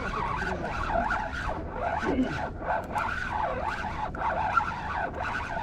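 Spinning reel being cranked while fighting a fish on a jig: a continuous wavering whine that keeps rising and falling in pitch.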